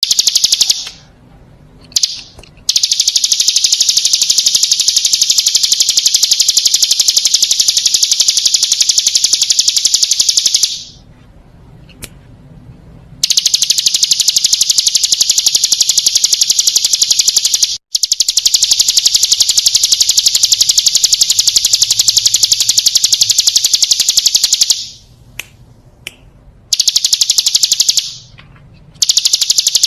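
Ciblek gunung (a prinia) singing a very fast, high, unbroken trill, held for several seconds at a time in a few long bouts with short pauses between them.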